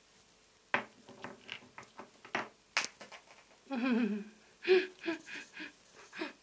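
Galah playing with small rocks on a tabletop: a run of sharp, irregular clicks and knocks, with a short wavering hum about four seconds in.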